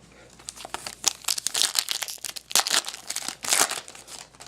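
A trading-card pack wrapper crinkling and tearing as it is ripped open and handled, a dense run of crackles lasting about three and a half seconds.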